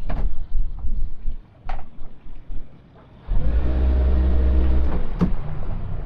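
Sounds aboard a small fishing boat at sea: sharp knocks and low thumps, then a steady mechanical hum that starts abruptly a little past halfway and stops with a click after about two seconds.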